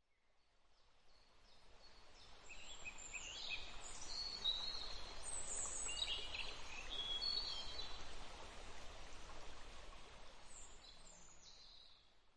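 Birds chirping and calling in many short high notes over a steady outdoor hiss. The sound fades in a couple of seconds in and fades out near the end.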